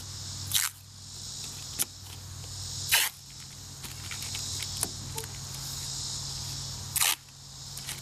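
Masking tape being pulled off the roll and pressed down in short ripping strips, several times, the loudest about half a second, three seconds and seven seconds in. A steady high insect chirring runs underneath.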